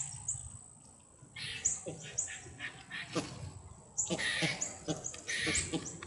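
A flock of American white ibises foraging, with scattered short, low grunting calls that come thicker in the second half, mixed with brief hissy bursts and small high chirps.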